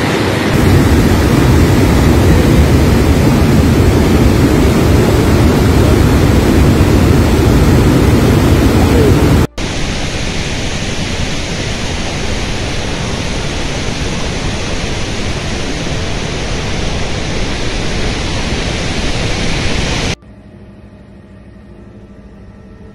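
Steady, loud roar of the Iguazu Falls and river in extreme flood, rushing water with no tones in it. About halfway through it cuts abruptly to a somewhat thinner, hissier rush of floodwater, and near the end it drops suddenly to a much quieter sound.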